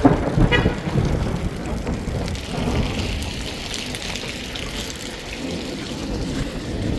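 Rain falling steadily, with a low rumble that starts suddenly and is loudest in the first second.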